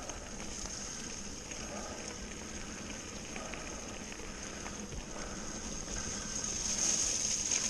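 Mountain bike rolling fast along a leaf-strewn forest dirt trail: steady tyre noise on the dirt and leaves with scattered small knocks and rattles from the bike, growing louder near the end.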